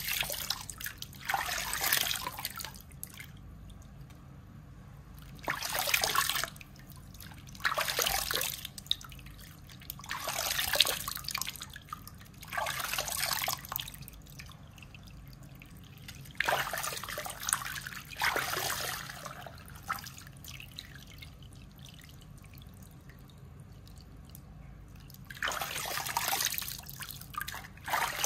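Water splashing and swishing through wet hair at a salon shampoo bowl as a hairdresser's hands work it, in about eight separate bursts of a second or so, with faint dripping between.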